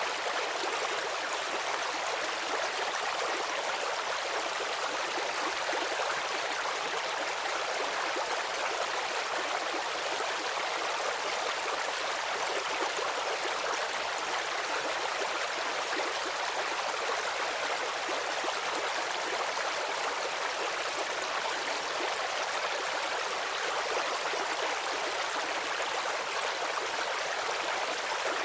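A stream of running water, rushing and splashing steadily without let-up.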